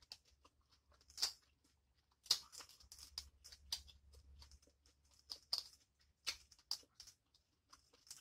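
Shells of boiled seafood being cracked and peeled by hand: faint, irregular crackles and sharp snaps, a few of them louder.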